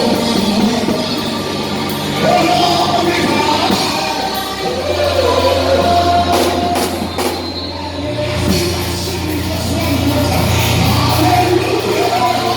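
Church music with singing over a sustained bass line that steps to a new note every few seconds, with drums.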